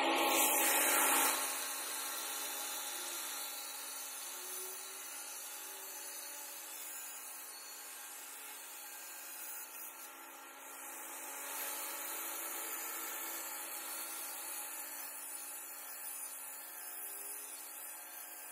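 Handheld angle grinder with a diamond blade cutting into a granite vanity top, a steady grinding whine. It is loudest in the first second or so, then settles, and grows louder again a little past the middle.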